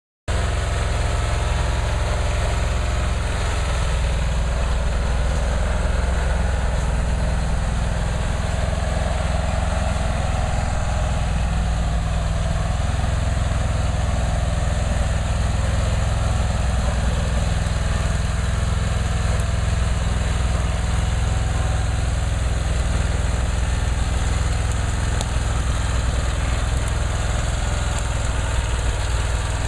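Vermeer stump grinder's engine running steadily as the machine is driven across the ground.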